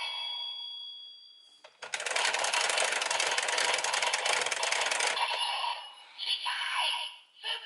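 Zenkai Buckle toy belt playing electronic sound effects through its small speaker: a fading chime-like tone, then about three seconds of dense crackling noise that cuts off suddenly, followed by short voice calls near the end.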